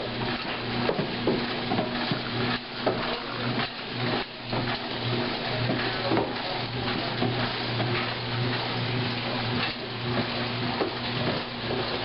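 Vintage washing machine running and agitating a load: water sloshing and splashing in the tub over a steady motor hum.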